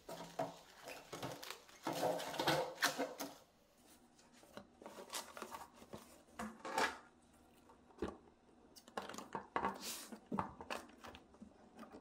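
Hands handling clear plastic food-storage containers and fresh leafy vegetables: leaves rustling as they are moved, with light plastic knocks and clicks. The handling is busiest about two to three seconds in.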